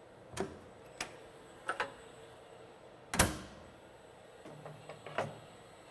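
Scattered mechanical clicks and knocks from industrial robot cells, the loudest a sharp clunk about three seconds in, with a brief low motor hum near the end over a faint steady machine hum.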